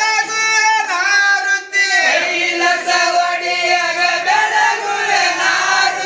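A group of voices singing a Kannada devotional aarti song in long, drawn-out notes.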